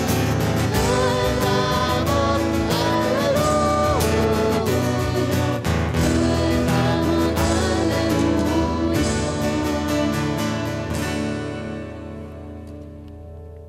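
Church worship band playing a song: voices singing over strummed acoustic guitar, keyboard and flute. The music dies away about eleven seconds in.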